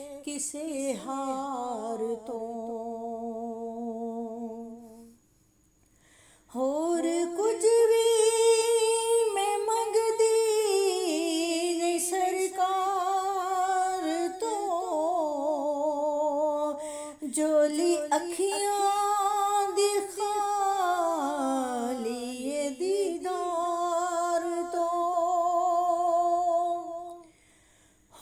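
A woman's voice singing a Punjabi naat unaccompanied, in long held notes that slide and waver in pitch. It breaks off briefly about five seconds in and again near the end.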